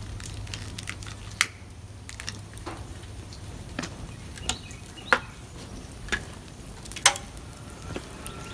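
Freshly lit lump charcoal burning in a forge, giving scattered sharp pops and crackles about once a second.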